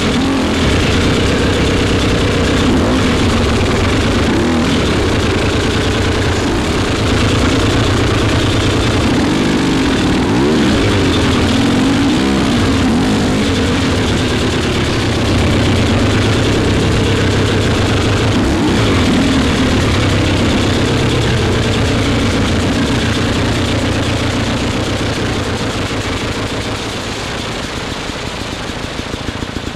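A vehicle engine running steadily, its revs rising and falling a few times, a little fainter near the end.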